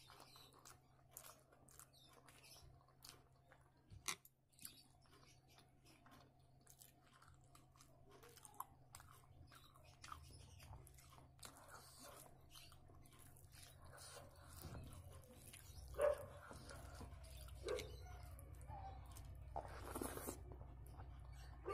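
Faint, close-up chewing and mouth sounds of someone eating rice and mashed potato by hand. Soft wet clicks come throughout, with a few louder clicks in the last several seconds, over a low steady hum.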